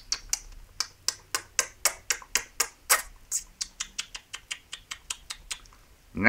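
A quick, irregular run of small sharp clicks, about four a second, stopping about five and a half seconds in: nibbling noises for a plush toy hamster chewing on a leaf.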